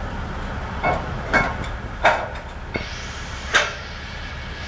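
About five sharp metal clanks and knocks from a hydraulic boat trailer being worked on a boat ramp, the loudest around two seconds in. A semi truck's diesel engine runs underneath as a steady low rumble, and a faint hiss sets in about three seconds in.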